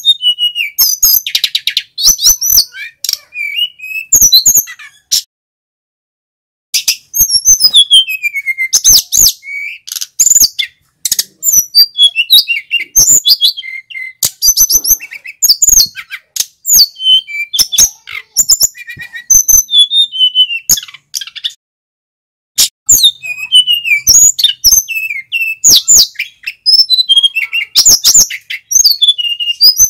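Male sikatan gunung (a flycatcher) singing a loud, high-pitched, fast song of chirps, trills and whistles in long bursts, broken by two short pauses.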